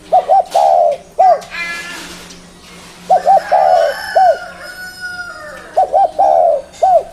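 Spotted dove (tekukur) cooing: three repeated phrases about three seconds apart. Each is two quick coos, a longer drawn-out coo, and a final short coo.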